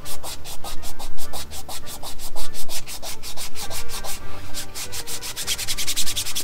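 Hand sanding a primed 3D-printed plastic armor piece with sandpaper: quick back-and-forth rubbing strokes that speed up toward the end.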